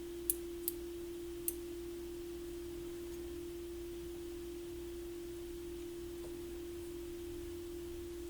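A steady, pure low hum-like tone holds without change, with three small clicks in the first second and a half.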